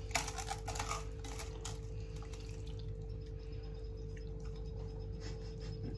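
Quiet room tone: a steady low hum with a faint clicks or taps in the first two seconds.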